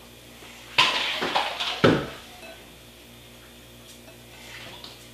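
Kitchen utensils clattering on cookware: a few clinks and knocks in the first two seconds, the sharpest at about two seconds in, then only small faint sounds over a low steady hum.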